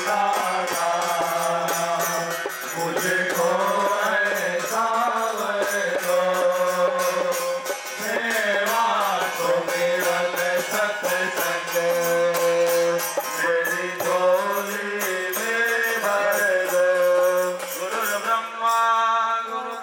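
Hindu devotional music: a mantra sung as a melodic chant over a steady drone, with a quick even beat of small percussion.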